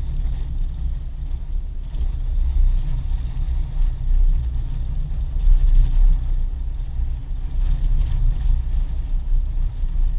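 Wind buffeting the microphone: a steady low rumble that swells and falls in gusts, loudest about six seconds in.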